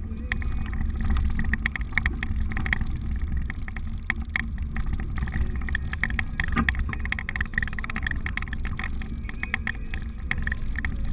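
Inside the cab of a 4x4 driving slowly on a rough dirt trail: a steady low engine and tyre rumble, with frequent light rattles and clicks as the vehicle jolts over the bumps.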